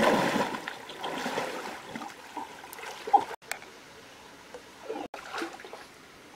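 Shallow river water splashing hard at the start as someone thrashes through it by hand, fading over a couple of seconds into the faint steady trickle of the stream.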